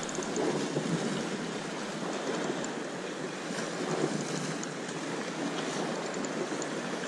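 Sea waves washing in a steady rush of noise, with wind.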